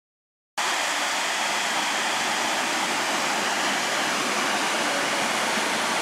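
Waterfall pouring into a rocky creek: a steady, even rush of water that starts abruptly about half a second in.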